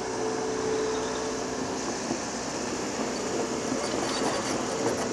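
Heavy diesel earthmoving machinery running steadily, with a steady whine over the engine noise that fades after a second or so and a few light clanks near the end.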